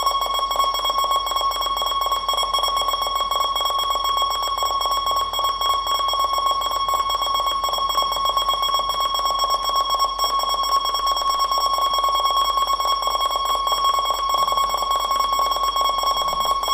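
Mindeo MP9900 2D barcode scanner's beeper sounding in a rapid, almost unbroken stream as it reads barcodes on cards spinning past it, giving a steady fluttering beep tone.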